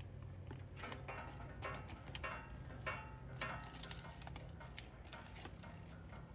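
A few short rustling, crinkling handling noises as tape for a muffler patch is cut and worked, over a steady low hum.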